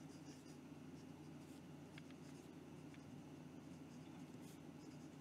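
Faint, soft scratching of a Hero 9315 fountain pen's medium nib writing across notebook paper, a smooth nib needing no tuning, over a low steady hum.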